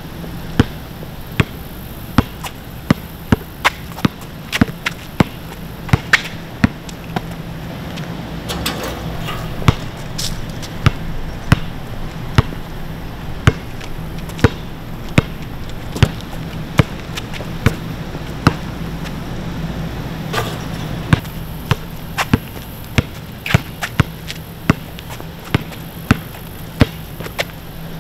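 A basketball being dribbled on an outdoor asphalt court: sharp bounces at an uneven pace of about one to two a second, with a few short pauses, over a steady low hum.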